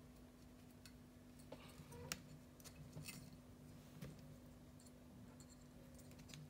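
Near silence with a few faint small clicks, the sharpest about two seconds in, from an exhaust spring and spring hook being worked onto an RC nitro engine's exhaust manifold, over a faint steady hum.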